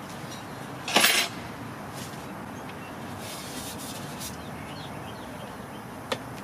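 A short metallic clatter about a second in, then a few light clicks and taps: hardware and tools being handled during a door installation.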